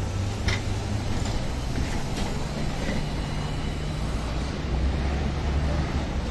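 Electric trolleybus pulling past close by in city street traffic: a steady low traffic rumble, a faint high whine from about two and a half to four seconds in, and a sharp click about half a second in.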